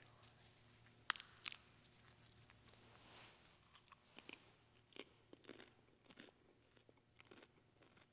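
Faint crunching and chewing of a communion wafer as it is eaten, with two sharp crunches about a second in and small scattered crackles after.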